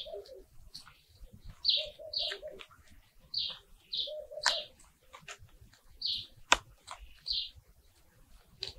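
Birds calling in the background, a short phrase of high chirps with lower notes repeated about every two seconds. A few sharp clicks, one louder about six and a half seconds in, come from hands digging through root-bound potting soil.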